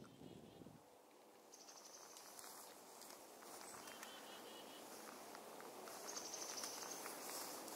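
Soft wind noise on the microphone, with a few faint, short, high-pitched bird calls.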